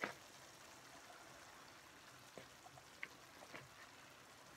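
Very faint crackle of a sausage and vegetable mixture simmering on low heat in a nonstick skillet, with a few soft ticks as handfuls of cooked rice are dropped in.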